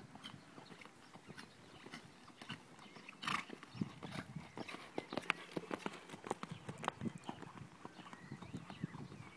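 Hoofbeats of a ridden horse cantering on grass, a run of dull thuds that grows louder as the horse passes close, about four seconds in, then fades as it moves away.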